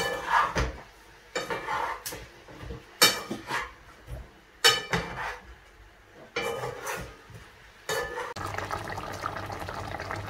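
A metal utensil knocking and scraping against a frying pan, about six separate clinks spaced a second and a half apart, each with a short ring. Near the end this gives way to a steady hiss with a low hum.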